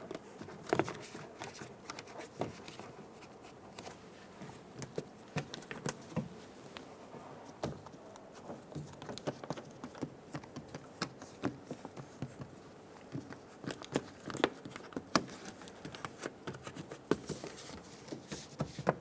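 Plastic vapor barrier sheet crinkling as it is pressed back onto the door's sticky butyl sealant, with scattered light clicks and taps at an uneven pace.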